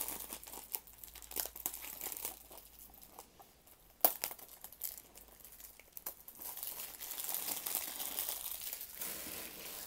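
Plastic shrink wrap being picked at, torn and peeled off a DVD case, crinkling and crackling. The film clings to the case. There is a sharp snap about four seconds in, and a denser rustle over the last few seconds as the film comes away.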